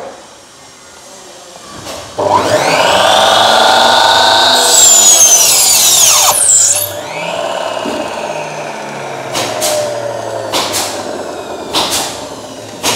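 1,800-watt electric mitre saw switched on: its motor whines up to speed, the blade cuts through a small block of wood for about two seconds, then the saw is released and the motor winds down with a falling whine. A few sharp clicks sound in the last few seconds as it slows.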